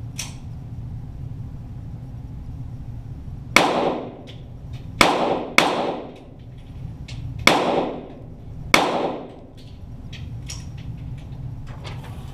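.22 Walther GSP target pistols firing five shots at an uneven pace, each sharp crack followed by a short reverberating tail, with a few fainter ticks between, over a steady low hum.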